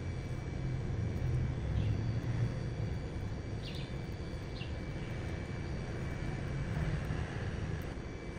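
Steady low background rumble, with a few faint short high chirps about halfway through.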